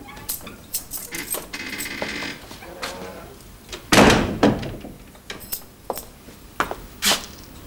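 A door opening with a loud thump about four seconds in, followed by footsteps on a hard wooden floor, a sharp step about every half second.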